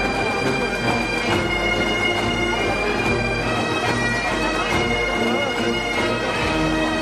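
Scottish Highland bagpipes playing a tune over their steady drones.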